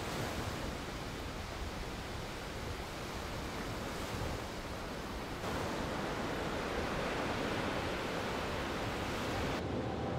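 Sea surf breaking and washing up a sandy beach: a steady rushing hiss of waves. The surf sound shifts about five seconds in, and its high hiss drops away near the end.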